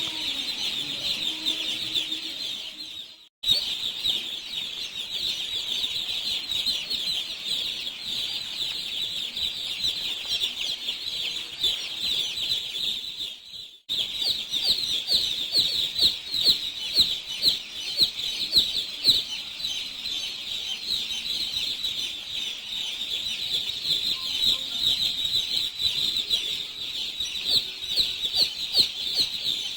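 A shed full of thousands of chicks peeping all at once, a dense chorus of high cheeps. It drops out briefly twice.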